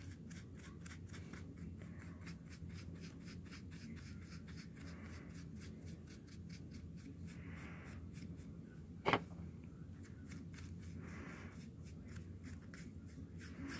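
Faint soft strokes of a paintbrush spreading paint over a plastic paint palette, a few brushing sounds spread out over low room hum. A single sharp click comes about nine seconds in.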